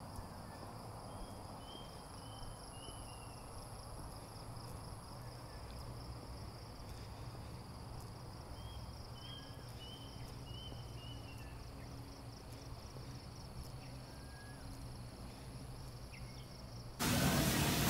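Outdoor ambience: a steady high-pitched insect trill over a low background hum, with two short runs of about four small bird chirps. About a second before the end, a much louder hissing noise cuts in abruptly.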